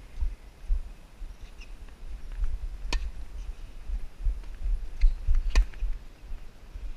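Tennis ball struck by a racket about three seconds in, with another sharp ball impact a little after five and a half seconds, over a steady low rumble.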